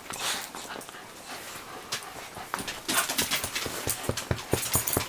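A small dog close to the microphone, snuffling and panting, with a quick run of short clicks and breaths in the second half.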